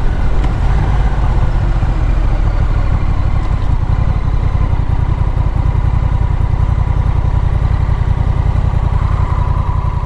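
Motorcycle engine running with a low, even pulsing as the bike slows at an intersection and idles at the stop line.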